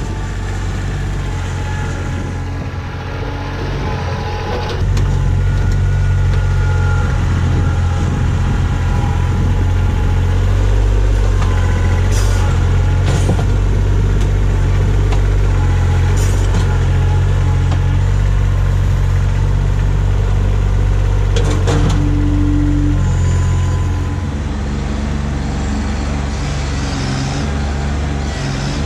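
Kubota B2601 compact tractor's three-cylinder diesel engine running steadily as the tractor digs with its front-loader stump bucket, with a few sharp knocks. It gets louder about five seconds in and a little quieter near the end.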